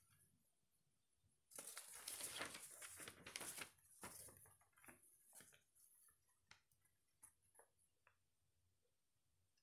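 Sheets of printer paper rustling and crackling as they are handled and flipped over, loudest for about two and a half seconds, then a few faint crinkles and ticks as the pages settle.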